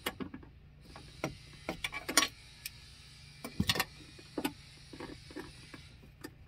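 Hand ratchet and socket loosening a bolt on the window track inside a car door: irregular metal clicks and clinks in short runs, the loudest about two seconds in, over a steady low hum.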